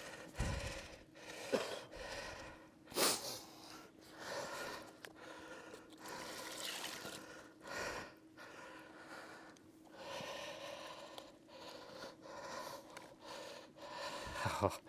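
A man breathing hard and gasping with effort as he handles and turns a large carp on an unhooking mat, with a few sharp knocks and thumps.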